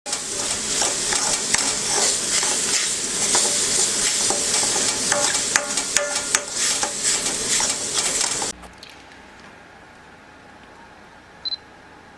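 Food sizzling in a hot pan with clinks and scrapes of a utensil, cutting off suddenly about eight and a half seconds in. Then faint room tone and one short electronic beep near the end.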